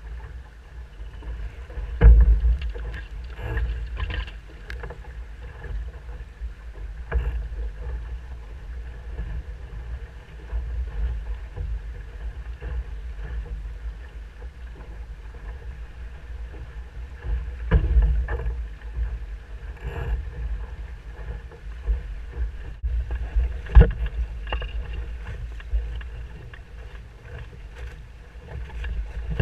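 Musto Skiff dinghy sailing upwind: water rushing past the hull and a steady low wind rumble on the boat-mounted microphone. Several sharp thumps and splashes as the hull hits waves, the loudest about two seconds in and again around eighteen and twenty-four seconds.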